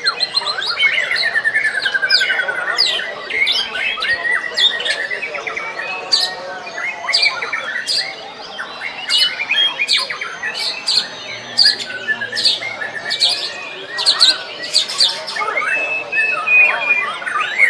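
White-rumped shamas (murai batu) in full song, a dense, varied stream of sharp whistles, rapid trills and quick rising notes, several birds overlapping.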